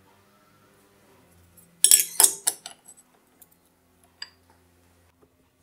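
A short cluster of sharp clinks and knocks about two seconds in, then a few lighter ticks: a reference plate being shifted and seated against a lathe's top slide while a dial indicator is set against it.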